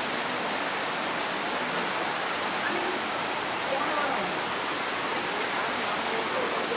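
Heavy rain pouring down hard, a steady even hiss of the downpour.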